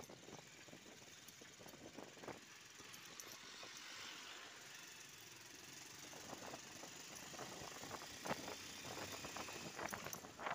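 Motorcycle on the move: a steady rush of wind and road noise under the engine, with scattered short clicks and rattles that come more often near the end.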